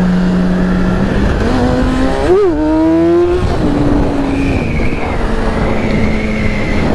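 Yamaha R6's inline-four engine under way, revving up and dropping sharply in pitch about two and a half seconds in as it shifts up, then again about a second later before holding steady. Wind rushes over the rider's microphone throughout.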